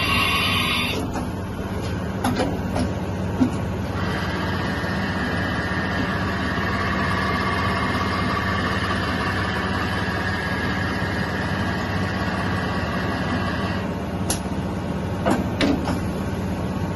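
Kasuga Q-600G CNC milling machine running: a steady low hum throughout, with a higher, even whine that starts about four seconds in and stops about three seconds before the end. A few sharp clicks come before and after the whine.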